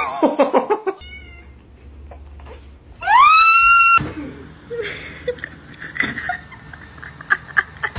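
A domestic cat gives one loud, drawn-out meow about three seconds in. It rises in pitch, holds level for about a second and cuts off abruptly. Just before it, at the very start, come a few short falling cries.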